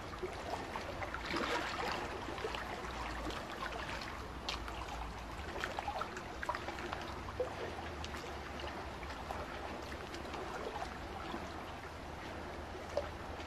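Quiet, gentle water lapping and trickling in shallow water, with many small scattered splashes and drips over a low steady rumble.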